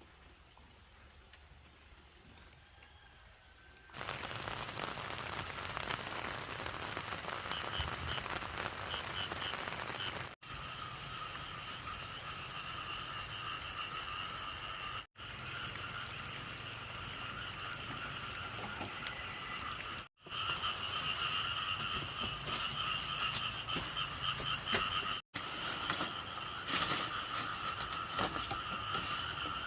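Chorus of many frogs croaking over a steady hiss, with calls in a lower and a higher pitch band. It starts about four seconds in after near silence and drops out briefly at four points.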